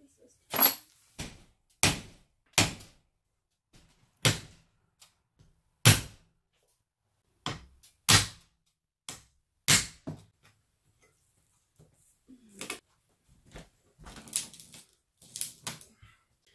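Hammer blows on a wooden window frame: about ten sharp, irregularly spaced strikes, followed near the end by lighter knocks and rattles.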